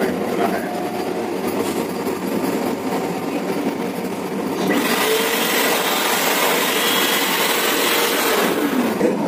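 A touch-free hand dryer starts blowing about halfway through, a steady rush of air, and cuts off near the end. Beneath it runs the steady noise of the moving train.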